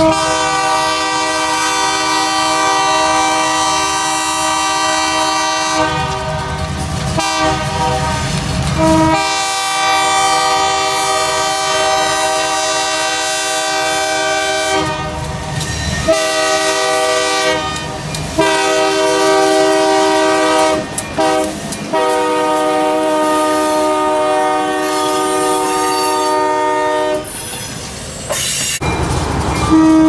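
Diesel locomotive's multi-chime air horn sounding a series of long blasts, separated by brief breaks, as the train approaches.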